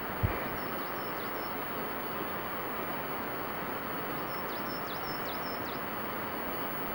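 Steady rushing outdoor background noise, with a small bird giving a few short, high chirps in two brief runs, and one dull thump just after the start.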